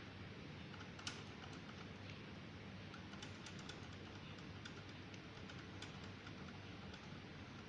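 Faint, scattered small clicks of a screwdriver turning a screw in the GeneXpert module's metal housing, with one sharper click about a second in, over steady room noise. The module is being unscrewed to release a cartridge stuck inside.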